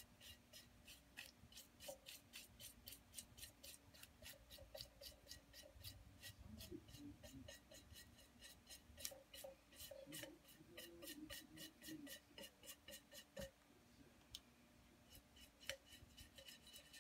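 Paintbrush bristles scrubbing glaze into the textured doily imprint of a bisque-fired plate: faint, quick scratchy strokes, several a second, with a brief pause about two thirds of the way through.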